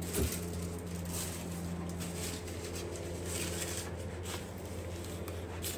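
Faint scraping, rubbing and a light knock from hands working on a stripped-down dirt bike, over a steady low hum.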